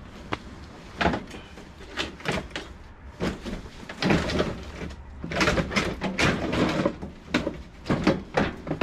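Rummaging through piled junk by hand: irregular clunks, knocks and scrapes as boxes and objects are shoved aside and a plastic-cased sewing machine is worked loose, busiest a little after the middle.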